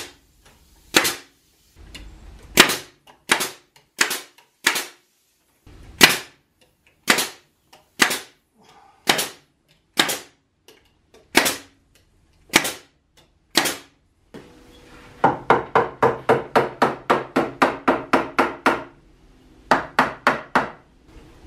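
Pneumatic nail gun firing nails into wooden boards: sharp single shots, often under a second apart. Then, from about 15 to 19 seconds, a rapid run of about four shots a second over a steady motor hum, followed by a few more shots near the end.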